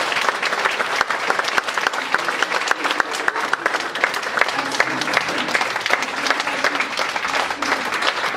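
Audience applauding steadily: a dense patter of many hands clapping at once.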